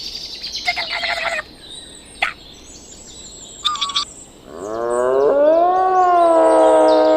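A few short, high bird chirps, then about halfway through a loud, long animal call that rises in pitch and then holds steady.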